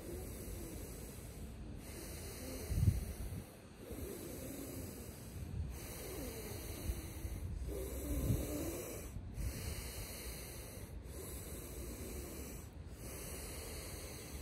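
Deep rhythmic breathing of Wim Hof–style power breaths, one full inhale and exhale about every two seconds. Two low bumps come a few seconds apart.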